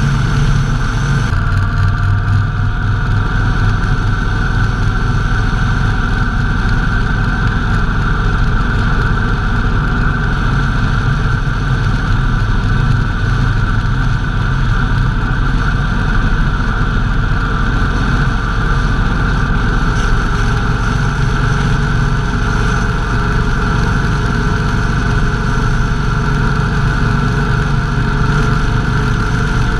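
Motorcycle engine running steadily at cruising speed, heard from on the bike. The engine note shifts slightly about a second in.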